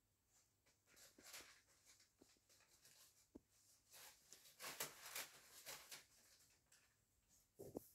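Near silence with faint, scattered rustling and light scratching, heaviest in the middle, and a soft thump near the end.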